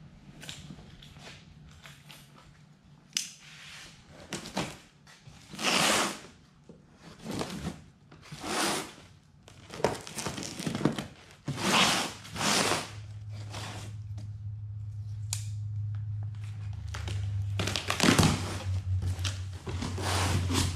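Packing tape on a cardboard carton being slit with a utility knife and torn, with cardboard flaps scraping and rustling as the box is opened, in a series of separate short strokes. A low steady hum comes in about halfway through and grows near the end.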